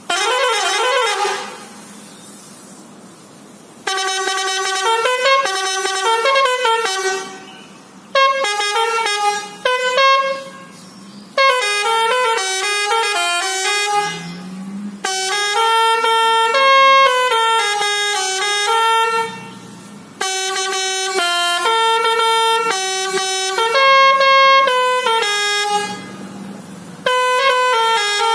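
A lorry's multi-tone telolet air horn playing short melodic phrases, the notes stepping up and down, about seven bursts of a few seconds each with brief pauses between them.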